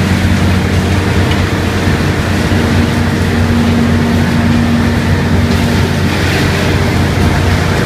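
Washing tank of a plastic milk-bottle recycling line running: a steady machinery hum from its motors and rollers over the rush of churning water.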